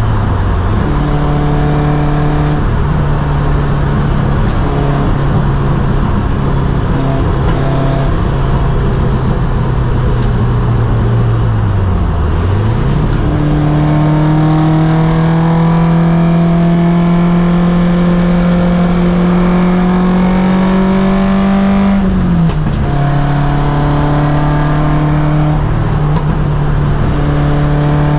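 Toyota 4A-GE twin-cam four-cylinder on side-draft carburetors, running hard under load. The engine note holds steady, dips and recovers about twelve seconds in, climbs slowly in pitch for several seconds, then drops sharply near the end, as at a gear change.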